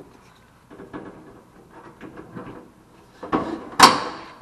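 Handling noises, then two loud clanks about half a second apart near the end, the second with a brief metallic ring, as the sheet-metal housing of an electric wall heater is fitted into place on the wall.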